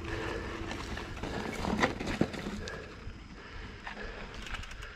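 A mountain bike climbing a steep dirt trail: knobby tyres crunching over the ground, with a few sharp clicks and knocks from the bike.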